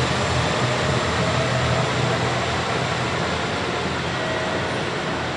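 KiHa 185 diesel railcar pulling away, its diesel engine running with a steady low hum that slowly fades as the train recedes.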